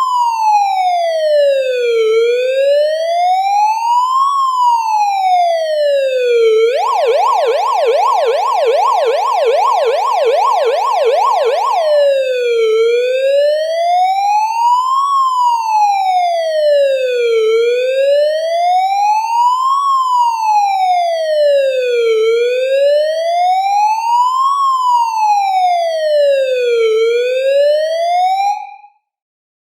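Police car siren in a slow wail that rises and falls about every four to five seconds. About seven seconds in it switches to a fast yelp of two to three sweeps a second for about five seconds, then returns to the wail and cuts off suddenly shortly before the end.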